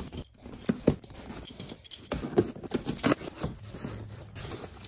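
Handling noise: irregular taps, knocks and rustles as a box of new replacement parts, including a wire harness, is opened and the parts are taken out.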